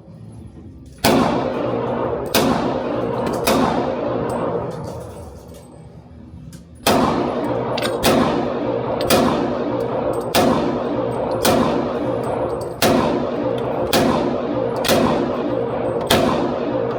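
Pistol firing twelve shots, each with a long ringing echo: three shots, a pause of about three seconds, then a steady string of nine at about one shot a second.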